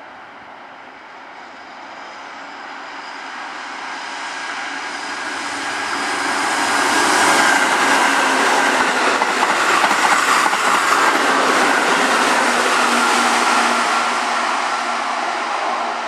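Keihan electric commuter train running past on the track: its rumble and wheel clatter build over several seconds, stay loud as the cars go by close, then begin to fade near the end.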